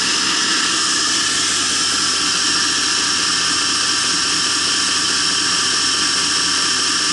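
Motor-driven belt running steadily on a prototype center-tracking assembly, a constant machine hum with a high, even whine.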